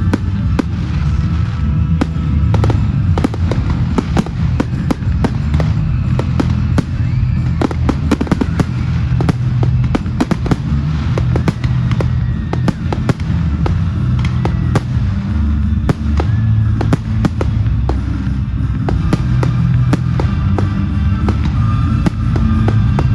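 Fireworks display: a dense, continuous volley of bangs and crackles, many shots a second, over music with a heavy bass.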